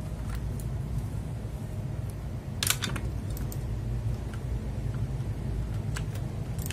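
A few sharp plastic clicks, with a louder clatter about two and a half seconds in, from pulling a keycap and swapping a mechanical keyboard switch in its hot-swap socket. A steady low hum runs underneath.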